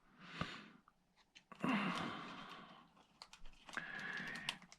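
Faint small clicks and soft rustling from handling a set of security screwdriver bits, with a few quick clicks a little after three seconds in.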